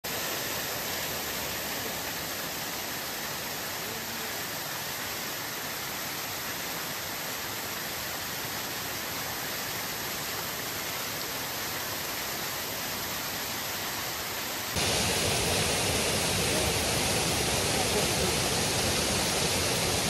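Fountain water pouring in a sheet over a curved ledge into the pool below: a steady, even rushing splash. About fifteen seconds in it abruptly becomes louder.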